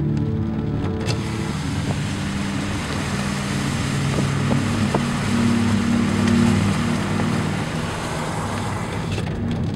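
Car driving at speed: a steady low engine hum under loud road and wind noise.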